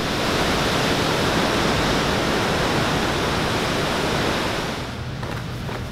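Ladder Creek Falls rushing fast: a steady rush of falling water, which drops off somewhat about five seconds in.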